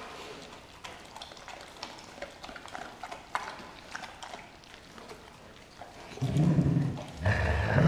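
Dogs tearing and chewing a whole raw turkey, with scattered small wet clicks and crunches. About six seconds in, a dog growls low twice, each growl about a second long and much louder than the chewing.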